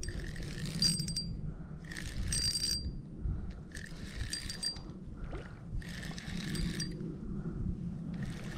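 Spinning fishing reel being cranked in short spells, about five times, each turn giving a hissy whir with a faint ringing tone, while a fish is brought in. A steady low rush runs underneath.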